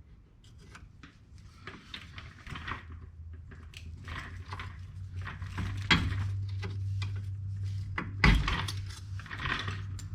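Hand tools clinking and scraping on the steel parts of a car's front suspension while a stubborn retaining clip is worked loose, with two sharp metal clanks, about six and eight seconds in. A steady low hum grows underneath from about the middle onward.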